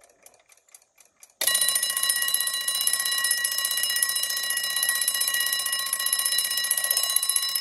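Westclox Big Ben Loud Alarm wind-up alarm clock going off about a second and a half in, after a few faint clicks: a loud, continuous, rapid ringing of its bell. It rings with the hands at about 4:40 though set for 5, so the alarm hand is out of adjustment.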